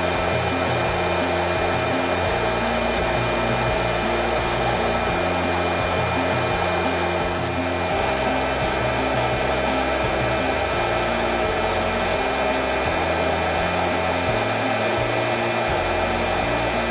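Coffee roaster's hot-air blower running steadily, a constant whirring rush with a steady hum in it, under background music with a moving bass line.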